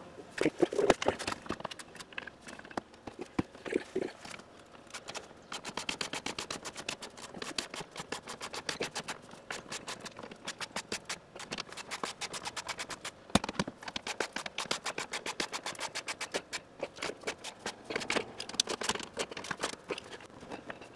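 A cordless driver sends screws into the wooden truss to fix a unit heater in place: a long, fast, even run of clicks, about ten a second, with a few short breaks. A few knocks of the heater and boards being handled come before it.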